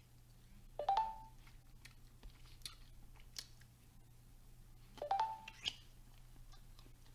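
Faint chewing and mouth clicks, with two short, similar squeaky tones, one about a second in and one near five seconds.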